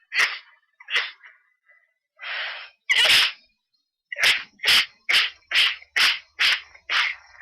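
A woman sneezing over and over in an allergy fit set off by a cat: two sneezes, a sharp breath in, a bigger sneeze, then a rapid run of seven short sneezes about two a second.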